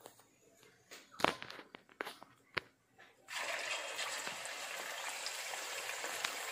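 A few light taps and clicks, then about three seconds in a sudden, steady sizzling starts as marinated chicken pieces fry in hot oil in a wok.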